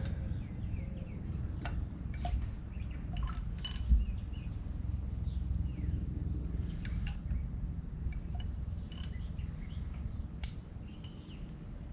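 Scattered light metallic clicks and clinks, some briefly ringing, from tools and engine parts being handled during top-end disassembly, over a steady low background rumble.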